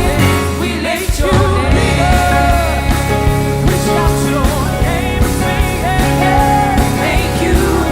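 Live worship band playing, with sung vocal lines over sustained bass and chords.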